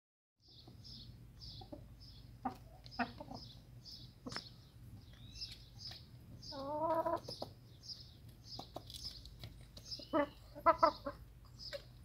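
Chickens clucking, with one longer wavering call about seven seconds in and a quick run of short clucks around ten to eleven seconds. A high chirp repeats steadily about twice a second behind them, with a few sharp taps.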